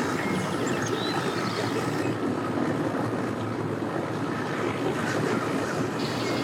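Boat and tow-vehicle engines running at a busy boat ramp, a steady mixed rumble without any single standout event.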